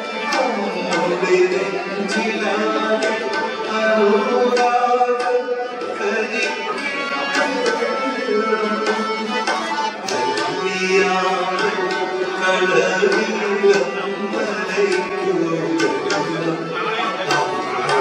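A man sings a song live into a microphone, holding and bending long notes, while a drum beats a steady rhythm under the voice.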